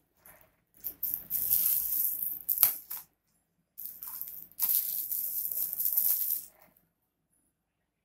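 Crinkling of a clear plastic wrapper as a card wallet is pulled from its box and unwrapped: two stretches of rustling with a sharp click partway through the first.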